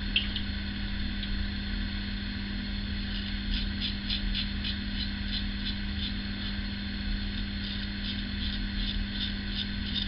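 Short, crisp scraping strokes of an Ever Ready 1924 single-edge safety razor with a GEM coated blade cutting through stubble, starting a few seconds in and repeating two or three times a second, over a steady low hum.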